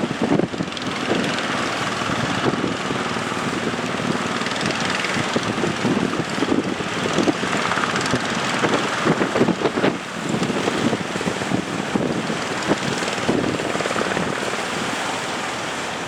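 Fishing boat's engine running steadily under strong wind buffeting the microphone, with the rush of big waves.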